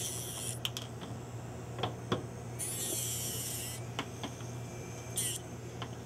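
Dental lab handpiece with a diamond disc burr grinding spurred material off a thermoplastic denture clasp: three bursts of high-pitched grinding, the longest lasting over a second with a wavering pitch, over a steady low hum, with a few sharp clicks in between.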